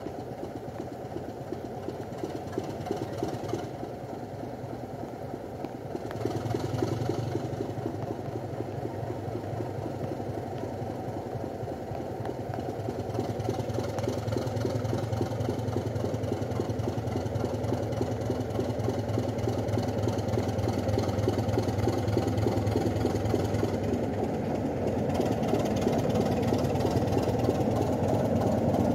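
Two Class 25 diesel locomotives, each with a Sulzer six-cylinder engine, working in tandem as they haul a passenger train slowly past. The engine sound steps up about six seconds in, then keeps growing louder as the locomotives come close.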